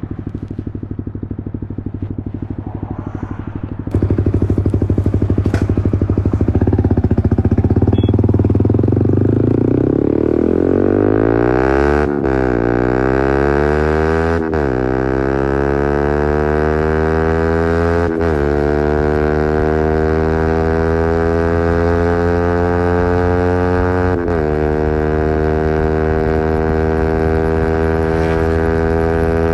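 Yamaha R15 V3's single-cylinder engine through an Akrapovič replica exhaust with a custom bend pipe, getting louder about four seconds in as the bike pulls away and then accelerating up through the gears. The note climbs and drops sharply at each of four upshifts.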